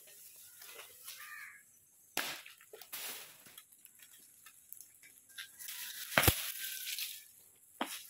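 Irregular sharp knocks and cracks from cutting work up in a coconut palm. The loudest is a heavy, deep thud about six seconds in.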